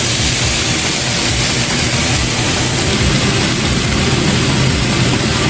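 Chicken searing in a hot skillet: a loud, steady sizzle with no breaks, over a low steady hum.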